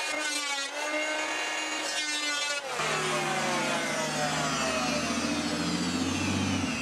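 Bosch random orbital sander running on a pine board, its motor a steady whine. About two and a half seconds in, the sound changes abruptly to a lower hum whose higher tones slowly fall in pitch, running until just before the end.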